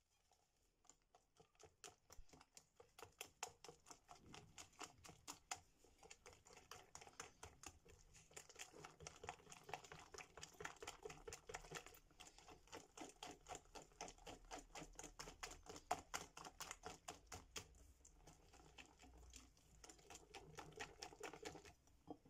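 A green-coated wire balloon whisk beating an egg mixture by hand in a glass bowl, its wires clicking against the glass several times a second. The clicks are sparse at first, settle into a quick, steady rhythm after about two seconds, and stop just before the end. Faint throughout.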